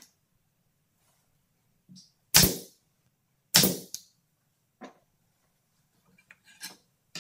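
Wooden boards being handled and tapped into alignment on a metal table saw top, the saw not running: two sharp knocks about a second apart, then a few lighter taps and clicks near the end.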